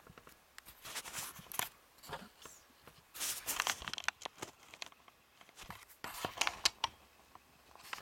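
Handling noise as a hand-held camera is picked up and moved about: irregular rustling, scraping and clicks of skin and fabric brushing over the microphone.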